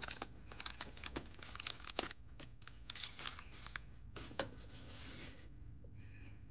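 Faint handling noise from a small plastic skeleton dog toy and its paper price tag: irregular crinkling, rustling and light clicks. A sharper click comes about four and a half seconds in.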